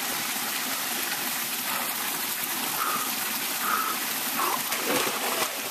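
Steady rushing of a thin waterfall pouring into a canyon pool.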